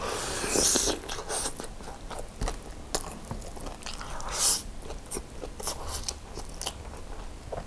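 Close-miked biting into crispy fried chicken coated in gochujang glaze, with a loud crunch in the first second, then chewing with small wet clicks. A short slurp of noodles about four and a half seconds in.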